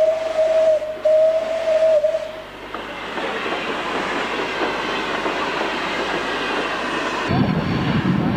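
Steam locomotive whistle sounding on one steady note, broken briefly about a second in and stopping a little after two seconds. It is followed by the steady running noise of the moving train.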